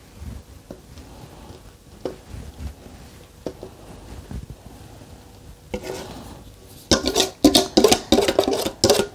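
Cake batter being scraped out of a stainless steel mixing bowl: a few light clicks against the metal at first, then a quick run of loud scrapes about seven seconds in.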